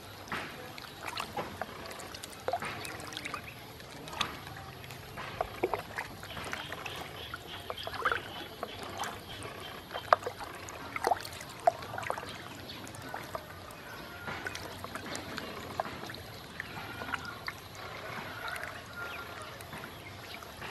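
Ducklings paddling and dabbling in a shallow plastic basin of water: irregular small splashes and drips throughout, with a few faint peeps in the second half.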